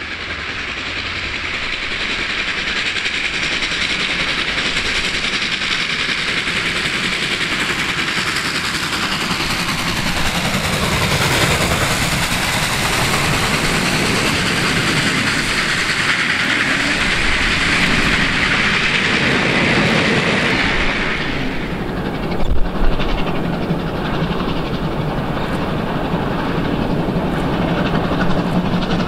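A steam-hauled passenger train passing close at speed, its carriage wheels clattering over the rail joints, the sound building up over the first couple of seconds. About two-thirds of the way through it changes abruptly to a quieter, more distant steam train running along the line, with a few sharp knocks just after the change.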